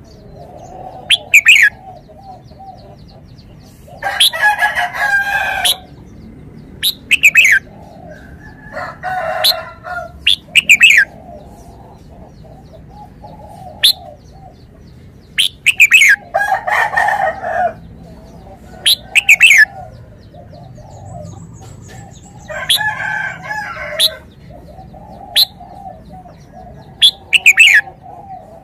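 Red-whiskered bulbul calling with short, sharp falling chirps, mostly in pairs. A rooster crows about four times in between, each crow about a second and a half long.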